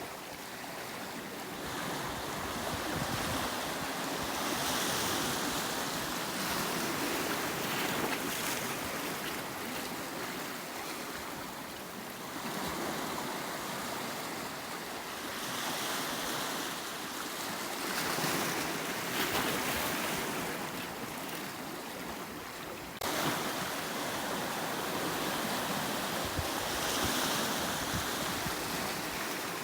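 Sea surf washing onto the shore in a continuous wash that swells and eases every few seconds as waves come in. The level steps up abruptly about three-quarters of the way through.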